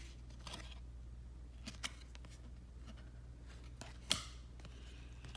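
Trading cards being handled and slid through the hand: a few light clicks and a short sliding rustle about four seconds in, over a low steady hum.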